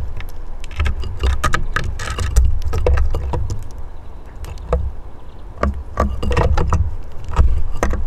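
Small birds pecking at seed and hopping about on a wooden bird table: irregular clusters of sharp clicks and knocks with low thumps, and no calls.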